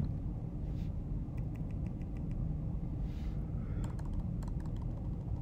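Keystrokes on a MacBook laptop keyboard, typed in a few short runs of quick clicks over a steady low hum.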